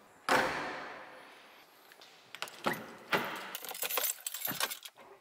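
A single loud thump about a third of a second in that fades slowly, then car keys jangling and clicking as the key is put into the ignition.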